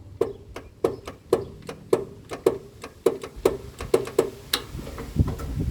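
Lawn tractor starter solenoid clicking over and over, about two to three clicks a second, without the engine cranking: the sign of a dead battery.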